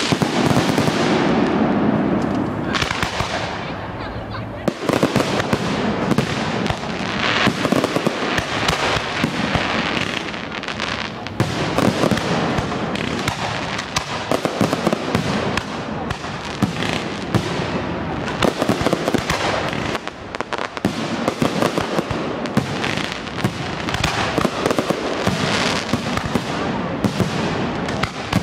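Large fireworks display: a continuous barrage of shell bursts and crackle, many sharp bangs every second.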